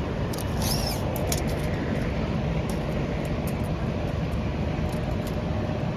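Steady low rumbling background noise like a running vehicle or machine, with a few light clicks and ticks in the first second and a half.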